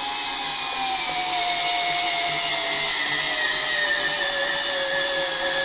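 Fanttik NEX L1 Pro cordless electric screwdriver driving a long screw into a wooden block, its motor whining steadily with a pitch that sinks slowly as the screw goes deeper.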